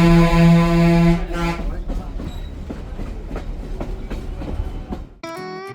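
Train horn sounding one long, steady, loud blast that stops about a second and a half in. The rumble and light clatter of the rolling train follow, and guitar music cuts in near the end.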